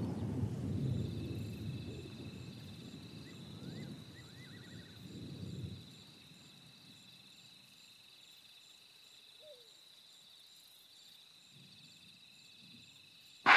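Bush ambience: insects trilling steadily at a high, even pitch, with a few short bird chirps about four seconds in. A low rumble fades out over the first half.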